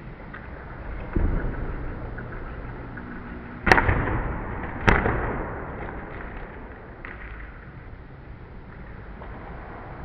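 Rhönrad vault dismount: a dull thud of the gymnast landing on the mat about a second in, over the low rumble of the steel wheel rolling on the hall floor. This is followed by two sharp, loud bangs a little over a second apart, each with a short ringing echo in the hall.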